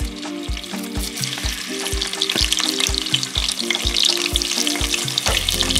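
Onion sizzling and frying in hot red palm oil, with some stirring, over background music with a steady beat.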